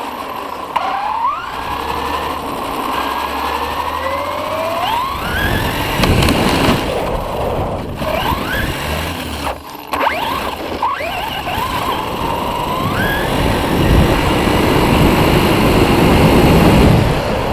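Electric motor and propeller of an RC flying wing (HobbyKing Rattler on a 3-cell LiPo) whining, its pitch rising again and again as the throttle is opened, over heavy wind rush from flight.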